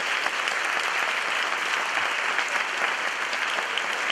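An audience applauding steadily, a welcome for the panel, with the panelists at the table clapping along.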